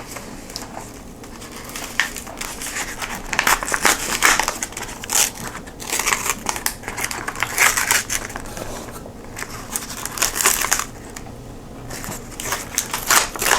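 Plastic snack wrapper crinkling and crackling in irregular bursts as it is handled, with brief quieter pauses.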